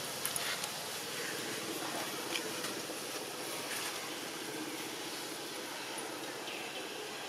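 Steady outdoor background noise, an even hiss and low rumble, with a few faint ticks and short faint chirps.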